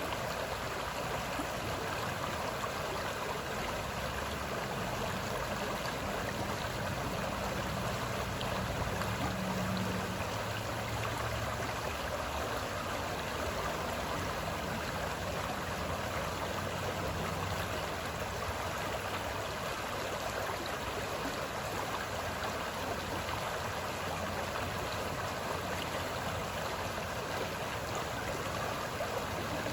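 Moving water in a steady, even wash with no distinct splashes.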